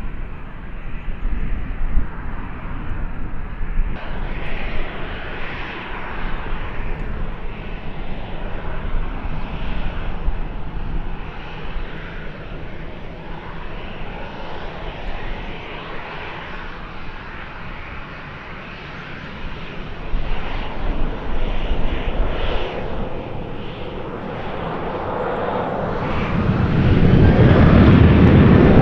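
Boeing 737 jet engines running as the airliner taxis on the runway, a steady rushing whine. Over the last few seconds it grows much louder and deeper into a heavy rumble.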